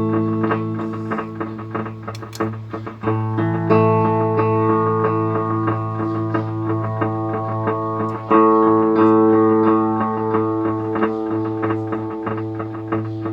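Electric guitar played through a Line 6 DL4 delay pedal: sustained chords with many quick note attacks layered under them, and new, louder chords struck about four and eight seconds in.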